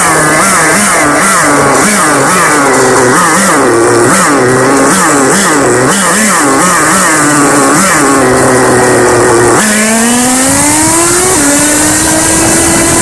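A nitro RC car's small glow-fuel two-stroke engine revving in quick blips, rising and falling about twice a second. About ten seconds in it opens up into one long rising pull and then holds a high, steady pitch.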